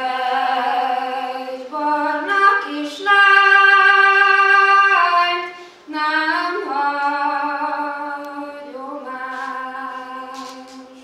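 A woman singing solo and unaccompanied, in long held notes that step up and down in pitch. The loudest is a single note held for about two seconds in the middle.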